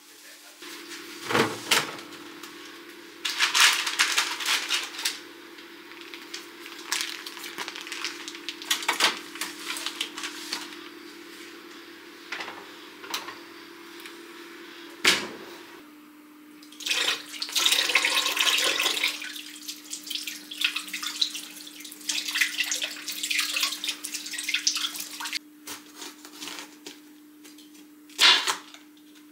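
Water running from a tap into a sink in several bursts a few seconds long, with a few sharp knocks, over a steady low hum.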